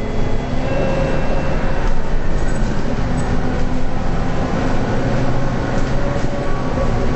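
Scania K230UB city bus's five-cylinder diesel engine and drivetrain running under way, heard inside the passenger cabin: a steady low drone with road noise.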